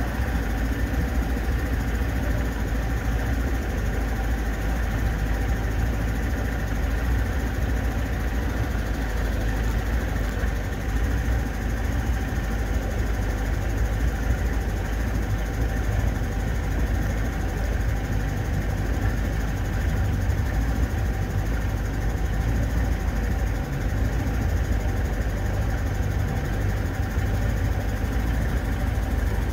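Small motorboat's engine running steadily at low cruising speed, a constant low drone with no change in pace; the boat runs fine at low speed.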